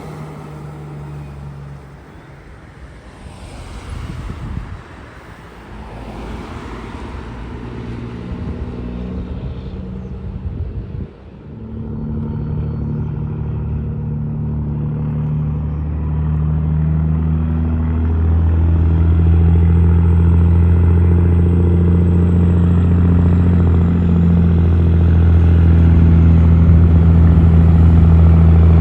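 Road vehicles passing. Then, from a little over a third of the way in, a vehicle engine's low steady drone builds and grows steadily louder.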